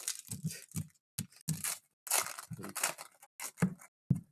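Trading cards being handled and flipped through: a string of short, dry snaps and scrapes, about two or three a second.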